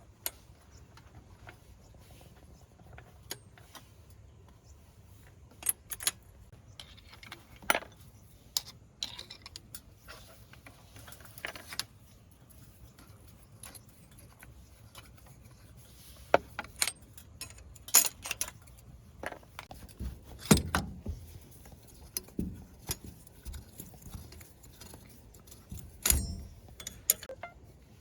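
Irregular metallic clinks and knocks of hand tools working on metal truck parts: scattered sharp clicks, busier in the second half, with a few louder knocks.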